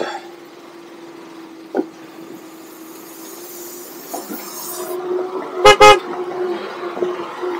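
Two short, loud horn toots in quick succession about five and a half seconds in, over a motorcycle engine running steadily on a rough gravel track.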